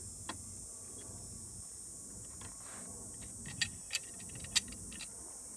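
Steel C-clamp handled and its screw turned against a scooter tyre, giving light metal clicks, with three sharper clicks between about three and a half and four and a half seconds in. A steady high-pitched hiss runs underneath.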